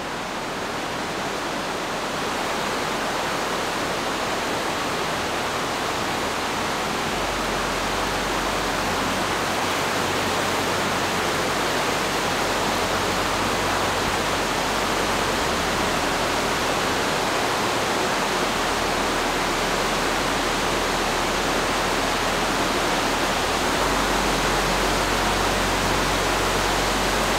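Steady rush of water in a rock tunnel, with spring water streaming down from the roof and running over the floor. It swells slightly over the first few seconds, then holds.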